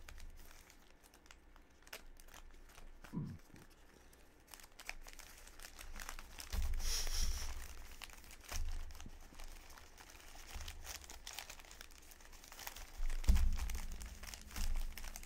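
Sealed baseball card packs in plastic wrappers being shuffled and fanned in the hands, the wrappers crinkling and rustling against each other, with louder bursts of crinkling about halfway through and near the end.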